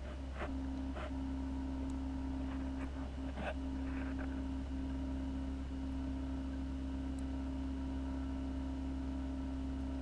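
Steady low hum of reef aquarium pumps running, with a constant tone above it and a few faint clicks in the first four seconds.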